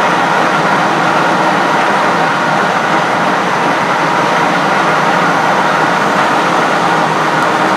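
Hendey lathe running under power at a steady speed, its motor and gear train whirring evenly.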